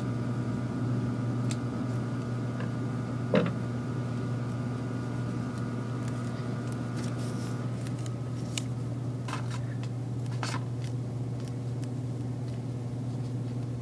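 Steady low electrical hum from a running motor or appliance, with some of its higher tones stopping a little past halfway, and a few faint short ticks.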